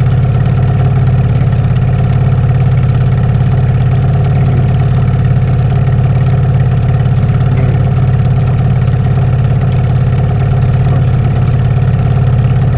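Boat motor running steadily at low trolling speed, a constant even hum.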